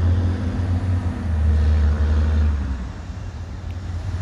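Low, steady engine hum of a large motor vehicle, which drops away sharply about three seconds in.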